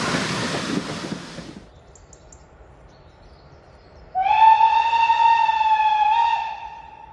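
A train running past, its rumble fading out within the first two seconds. About four seconds in, a steam locomotive whistle sounds one long, steady, high blast lasting a couple of seconds.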